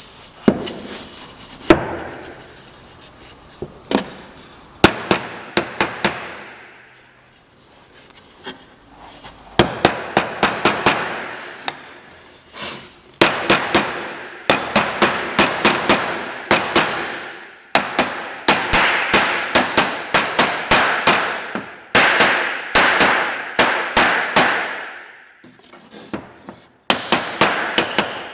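Hammer tapping in quick runs of several sharp blows, each run ringing briefly before the next; the runs get denser after about ten seconds in.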